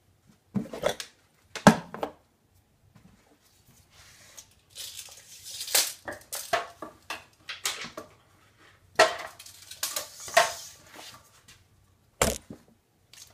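Scattered knocks, clatter and scraping as a tape measure, a metal square and a board are handled on a miter saw's table. The loudest knock comes a little under two seconds in, and there is another sharp knock near the end.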